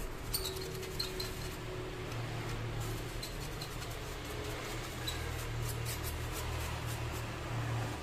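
A brush scrubbing dust off a laptop motherboard and its cooling fan: a light, scratchy rustle with a few soft clicks, over a steady low hum.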